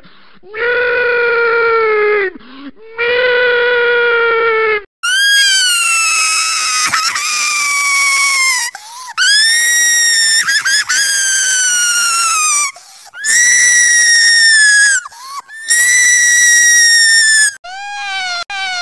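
The 'guy crying like a little girl' meme sound effect, a man's exaggerated wailing cry, played in edited variants. It starts pitched down low as two long wails. About five seconds in it jumps to a very high pitch for four long, slightly falling wails, and near the end it breaks into a rapid glitchy stutter of short repeated cries.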